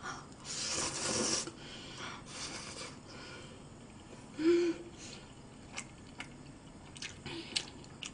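A woman slurping ramen noodles: a loud slurp about half a second in and a shorter one after about two seconds. Then a short hummed "mm" of approval, and a few light clicks of chewing or chopsticks near the end.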